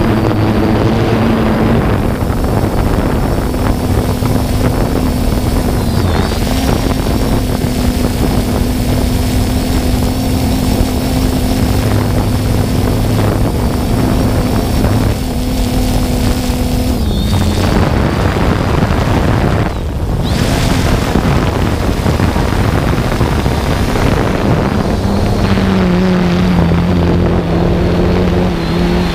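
3DR Solo quadcopter's electric motors and propellers humming steadily in flight, recorded from the drone's own camera, with a rushing wind-like noise over it. The hum shifts pitch a couple of times, dropping lower about two-thirds of the way through.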